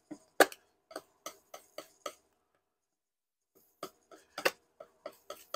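Large palette knife tapping and slapping on the palette while mixing oil paint: a series of sharp ticks, several a second, with a pause of about a second and a half in the middle.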